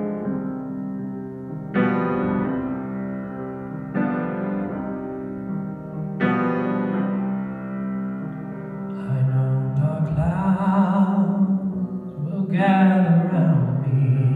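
Piano playing slow, held chords, a new chord struck about every two seconds. About nine seconds in, a sustained melody line with a wavering vibrato comes in over the piano.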